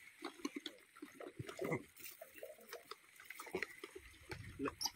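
A crowd of gray langurs making faint, scattered short grunts and squabbling calls while being fed, mixed with small clicks and rustles. A low rumble comes in near the end.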